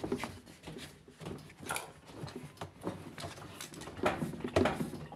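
Hands working on a washing machine's rubber door seal and surrounding plastic parts: irregular rubs, clicks and knocks, the loudest about four seconds in.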